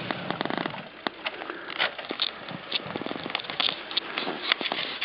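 Crunching steps in deep snow, about two a second, with a car engine revving briefly at the start and again about three seconds in.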